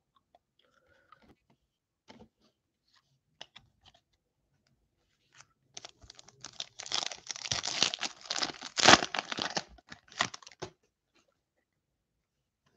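Clear plastic wrapper of a trading-card pack being torn open and crinkled by hand. It is preceded by a few faint taps and clicks of cards being handled. The crinkling starts about five and a half seconds in and lasts about five seconds.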